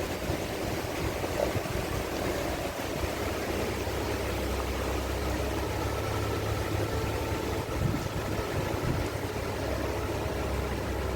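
Heavy-haul truck's diesel engine running steadily under way, with a constant low hum and road noise.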